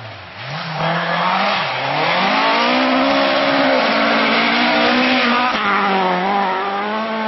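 Rally-built Vauxhall C20NE four-cylinder engine, bored to 2.1 litres, in a Mk2 Ford Escort being driven hard on a gravel stage. The revs climb, dip briefly about a second in, climb again and hold high, then drop sharply about five and a half seconds in before holding steady again.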